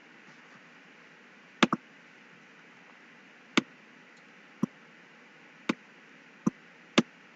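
Computer mouse clicking: a quick double click about a second and a half in, then five sharp single clicks spaced about a second apart.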